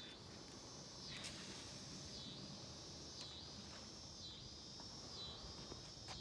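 Faint insect chorus: a steady high-pitched drone that swells and dips about once a second, with a few faint clicks.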